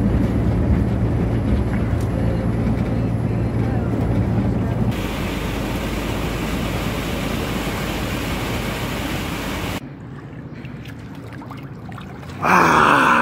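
Inside a truck cab on the highway: steady engine and road noise with a constant low hum. About five seconds in it changes to heavy rain hissing on the windshield as the truck drives on. It goes quieter for a couple of seconds near the end, then a sudden loud sound comes in.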